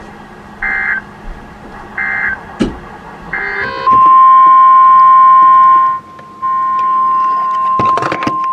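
Three short bursts of EAS digital data tones, the end-of-message signal, about a second apart. Then, about four seconds in, the loud steady NOAA Weather Radio warning alarm tone starts. It breaks off briefly around six seconds and carries on with a burst of static crackle near the end.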